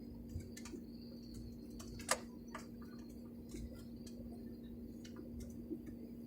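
Steady low hum of an airliner cabin, with scattered faint clicks and ticks and one sharper click about two seconds in.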